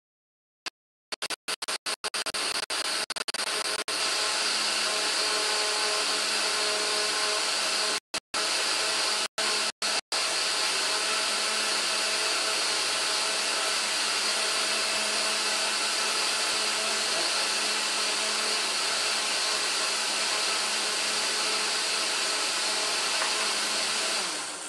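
Countertop blender running at speed, puréeing butternut squash soup. It starts in stutters about a second in, runs steadily with a few short gaps, and stops shortly before the end.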